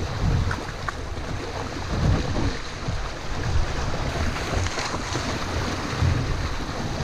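River current rushing and splashing against a canoe hull and around a person's legs as he wades it upstream, with wind buffeting the microphone in low rumbles.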